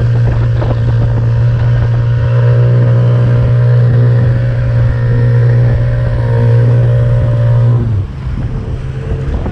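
Outboard motor of a small raiding boat running at speed with a steady drone, over the rush of wind and water; about eight seconds in the engine sound gets quieter.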